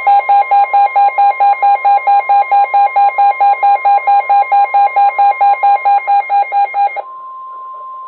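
NOAA Weather Radio warning alarm: the steady 1050 Hz alert tone, with a weather radio's electronic alarm beeping over it about five times a second, announcing a special marine warning. The beeping stops about seven seconds in while the steady tone carries on.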